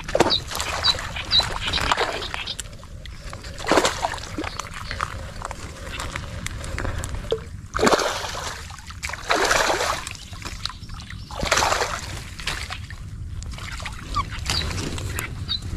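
Water splashing and sloshing in several separate bursts a few seconds apart.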